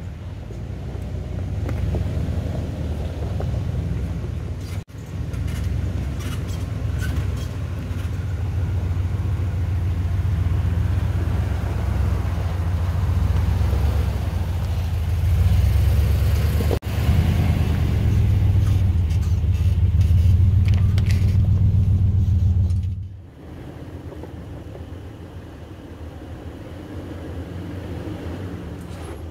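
Toyota Tundra pickup's engine running low and steady as it crawls over a rocky trail close by, getting louder as it comes nearer. About 23 seconds in it gives way to a quieter, more distant engine hum from a Toyota 4Runner.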